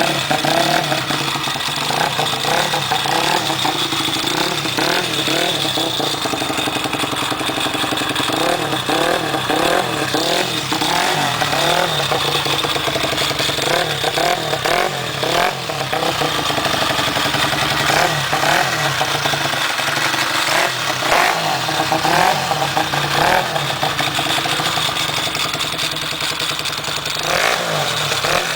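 Honda Monkey's small single-cylinder four-stroke engine running through an aftermarket exhaust, held at idle and revved up in repeated throttle blips that fall back each time.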